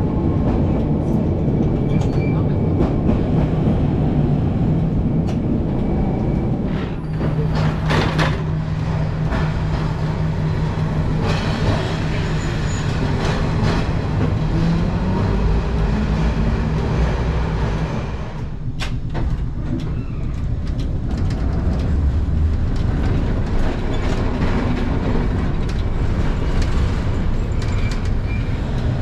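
ATM Class 1500 tram running: a continuous rumble of wheels on rails, with a few sharp clicks or knocks, and a steady low hum through the middle stretch.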